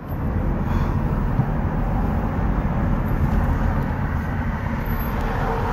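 Car's engine and road noise heard from inside the cabin: a steady low rumble as the car drives.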